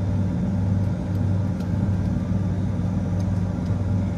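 Steady low hum of running refrigeration machinery (compressors and fans), with a few faint light clicks about a second and a second and a half in.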